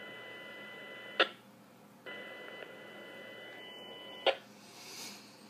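Police radio scanner feed playing from an online live audio stream: an open channel of static with steady tones, cut off by a sharp squelch click about a second in. It keys up again and is cut off by a second click about four seconds in.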